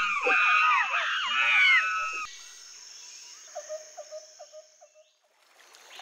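Monkeys chattering, a rapid tumble of high squealing calls that glide up and down, stopping abruptly about two seconds in. After that, quieter jungle ambience: a steady high hiss with a short run of low repeated calls.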